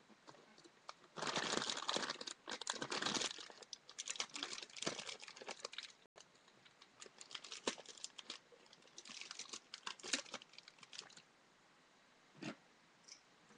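Plastic bag of hamster food crinkling and rustling as it is handled, in two long stretches, then a single knock near the end.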